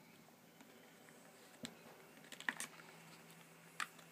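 A handful of small clicks and taps, a little cluster near the middle and one near the end: fingers pressing the two retaining levers of a laptop's SO-DIMM memory slot to release the memory module.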